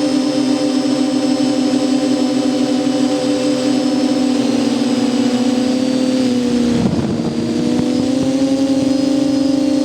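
Electric motor of a radio-controlled FPV model running with a steady hum and high whine. Its pitch sags as the throttle eases about four seconds in, a brief rush of noise comes around seven seconds, and then the pitch climbs back up.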